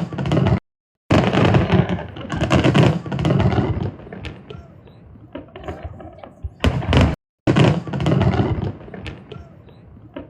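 Fireworks display booming and crackling, dense at first and then thinning to scattered cracks, with one more heavy burst near the end. The sound drops out completely twice.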